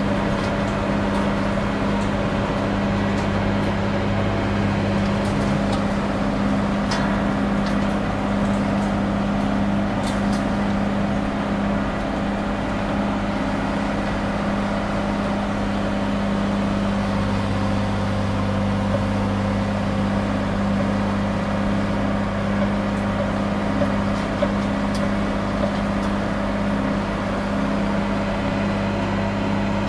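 John Deere 4455 tractor's six-cylinder diesel engine running steadily under load, a constant low drone, as it pulls a 3-point mounted row cultivator at working speed of about 6–7.5 mph. A few faint clicks come through now and then.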